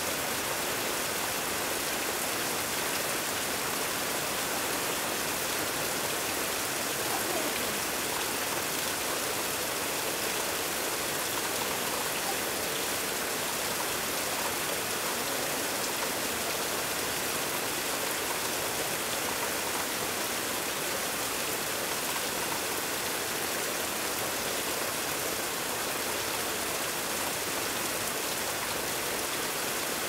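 Heavy rain falling steadily on corrugated metal roofing, an even, unbroken hiss of drops.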